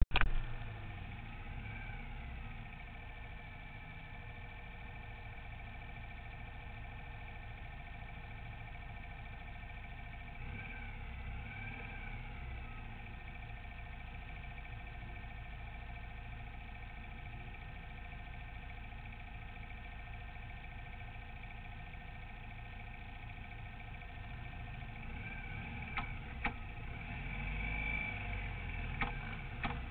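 Kart cross engine idling steadily while the kart stands still. Faint rising-and-falling tones come twice, and a few sharp clicks are heard near the end.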